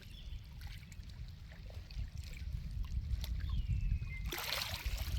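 Waterside ambience: a low, uneven rumble with faint trickling water. About three and a half seconds in comes a short falling whistle, and near the end a louder burst of hiss.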